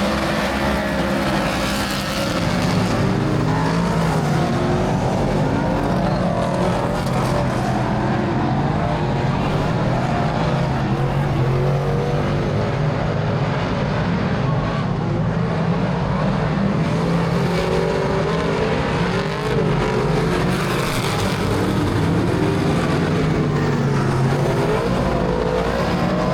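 Speedway race cars running laps, several engines revving up and down together in a continuous loud drone.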